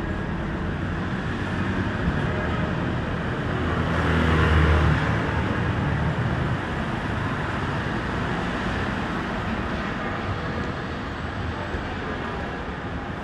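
Street traffic noise, with one vehicle passing close by about four to five seconds in: its low rumble swells and fades.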